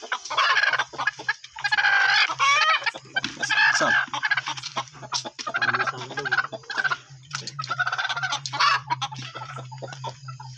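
Broody desi hen squawking and clucking again and again in protest as she is grabbed and handled, with rustling and knocking from the handling. A steady low hum runs underneath.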